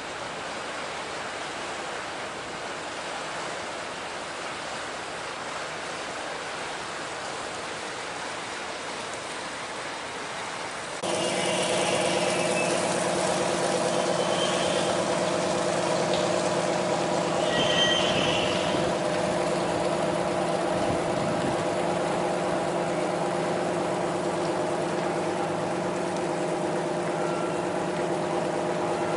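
A steady rushing noise, then about eleven seconds in a sudden switch to a pushed-convoy barge's diesel engine running steadily close by, a constant hum.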